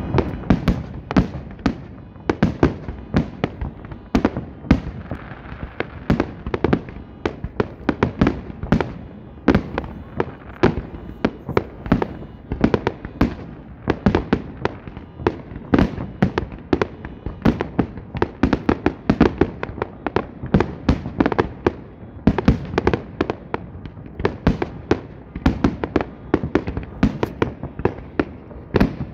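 Fireworks display: aerial shells launching and bursting in a continuous barrage of sharp bangs, several a second with no let-up.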